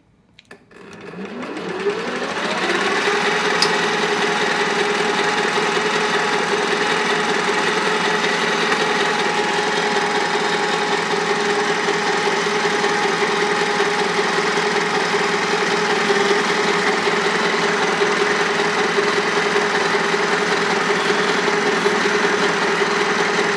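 Mini lathe motor starting about a second in, its whine rising in pitch for a couple of seconds and then running steadily while a ball turner rounds the end of a brass piece.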